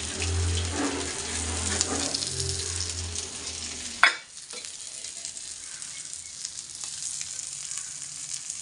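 Masala-coated fish shallow-frying in oil in a pan, sizzling steadily. A low hum sits under the sizzle for the first few seconds, and there is one sharp click about four seconds in, after which the sizzle goes on a little quieter.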